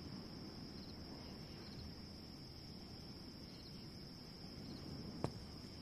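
Faint night-time insect ambience: crickets keeping up a steady, unbroken high-pitched trill, with one short click about five seconds in.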